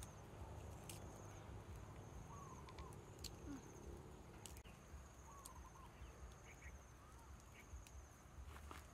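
Faint outdoor ambience: an insect's pulsed, high trill comes and goes in long stretches, with a few soft bird chirps and scattered faint clicks.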